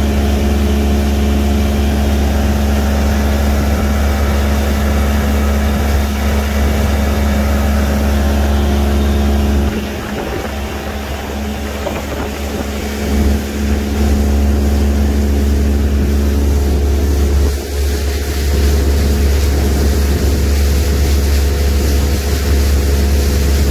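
Boat's outboard motor running steadily under way, a constant low hum. The level drops for a few seconds about ten seconds in and dips briefly again near eighteen seconds.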